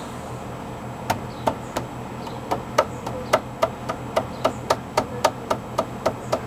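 Hammer striking wood: a few spaced blows about a second in, then a steady run of quick, even strikes, about three or four a second.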